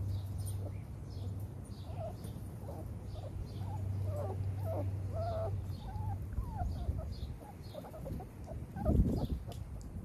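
Six-week-old XL pitbull puppies whining and whimpering: short thin cries that waver up and down in pitch, over a low hum and faint repeated high chirps. A loud dull thump comes about nine seconds in.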